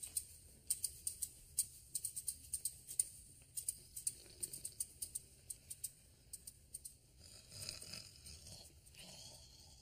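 Faint, sharp high-pitched clicking at an irregular rate of several clicks a second, thinning out after about six seconds and giving way to a soft rustle.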